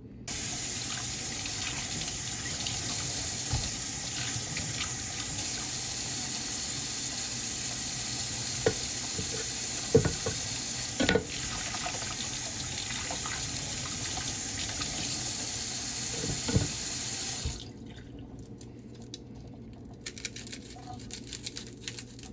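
Kitchen tap running into a sink as vegetables are washed under it, with a few knocks against the sink. The water shuts off about three-quarters of the way through, leaving light clicks and clatter of handling.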